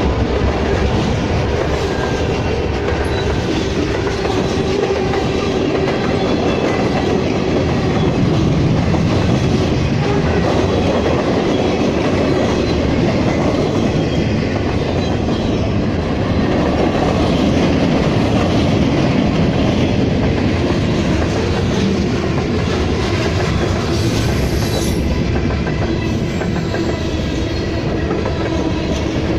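CSX freight train's cars rolling past close by: a loud, steady rumble of steel wheels on rail that keeps up without a break.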